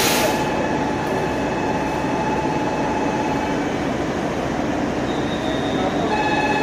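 JR Shikoku diesel railcars, a 2600 series limited express and a 1200 series local, idling at the platform: a steady engine rumble with a thin high whine. A short hiss of air comes right at the start, and the whine fades in the middle and returns stronger near the end.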